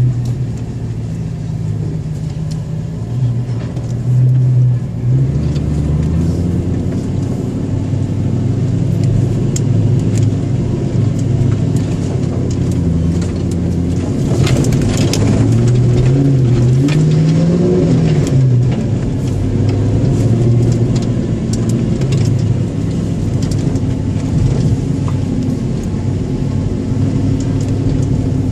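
Land Rover Discovery's Rover V8 engine running under load while driving a rough dirt track, its revs rising and falling with the throttle. The clearest climb comes a little past halfway, and a run of knocks and rattles from the vehicle over the bumps comes shortly before it.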